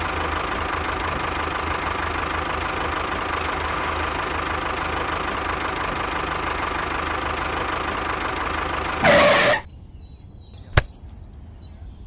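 Miniature model tractor running with a steady engine-like drone as it drives. The drone swells briefly, then cuts off abruptly about nine and a half seconds in. A single sharp click follows about a second later.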